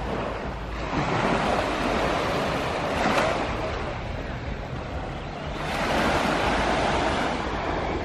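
Small waves washing up onto a sandy beach, the surf swelling and ebbing twice, with wind rumbling on the microphone underneath.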